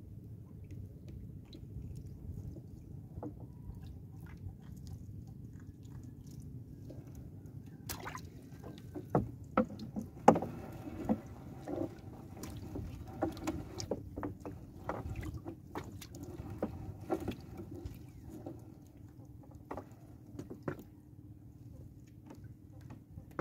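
Fishing net being hauled by hand into a small wooden outrigger boat: wet mesh and water splashing and dripping, with sharp knocks against the wooden hull, over the steady low sound of water lapping at the boat. The knocks come thickest from about a third of the way in until near the end.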